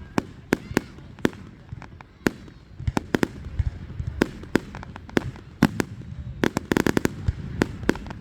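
Fireworks going off: a string of sharp bangs at irregular intervals over a low rumble, with a quick run of crackling reports about two-thirds of the way through.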